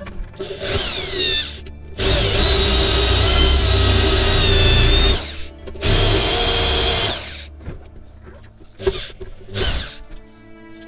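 Electric drill boring out the rivets in the steel bed of a 1970s Tonka toy dump truck. There is a short run that winds down, then a long run of about three seconds, another of about a second and a half, and two quick blips near the end.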